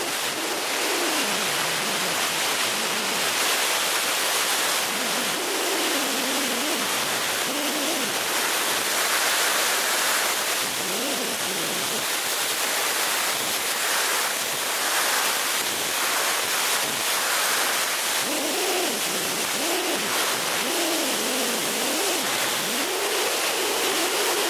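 Steady rushing of airflow over a glider's canopy, heard from inside the cockpit in flight. Faint wavering tones that rise and fall in pitch come and go beneath the rush, most clearly near the end.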